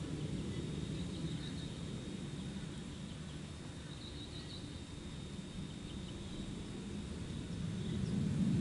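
Outdoor background noise: a steady low rumble with faint high bird chirps, once about a second in and again around four seconds in.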